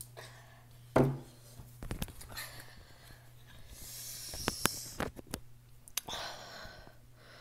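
Handling noise: one heavy thump about a second in, then scattered light clicks and short rustles, over a faint steady low hum.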